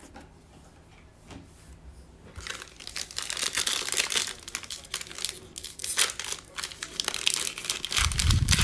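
Foil trading-card pack wrapper being torn open and crinkled by hand, a rapid dense crackle starting about two and a half seconds in, with a low thump near the end.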